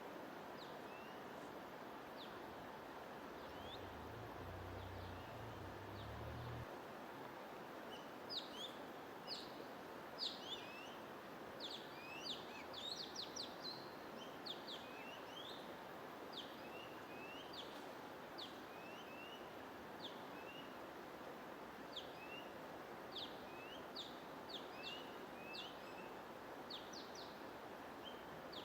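Small birds chirping in many short, quick notes that mostly sweep downward, scattered at first and coming thick and fast from about eight seconds in, over a steady hiss of white noise.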